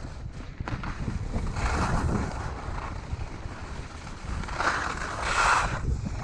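Skis carving and scraping over packed snow, the edge hiss swelling twice, about two seconds in and again around five seconds in, under a steady rumble of wind buffeting the GoPro Hero 6's microphone.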